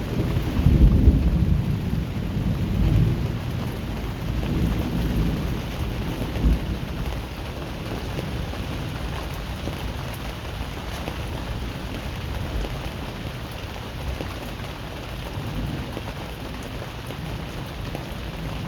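Thunder rumbling over steady rain. The rumble is loudest in the first few seconds, with a sharper peak about six seconds in, and dies away after about seven seconds, leaving the rain.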